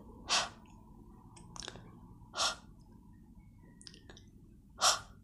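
A woman's breathy "h" sound, the letter H's sound spoken on its own, repeated three times with pauses of about two seconds between.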